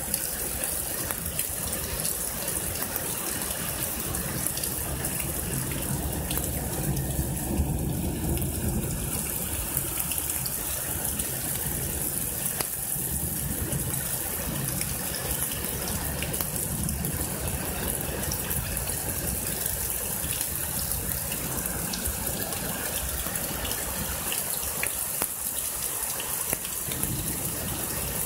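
Heavy rain pouring down steadily in a storm, with water gushing and running off over a flooded street.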